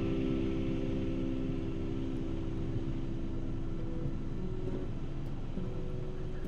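Cabin noise of an Airbus AS350 AStar helicopter in flight, heard from inside the cockpit: a steady rush of turbine and rotor.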